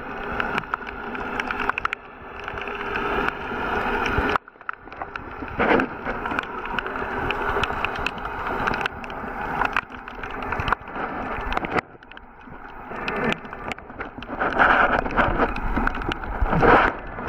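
Muffled underwater noise of water rushing and sloshing around a handheld waterproof camera as a snorkeler swims. It swells and drops every couple of seconds, with scattered sharp clicks. Near the end comes louder splashing as the camera breaks the surface.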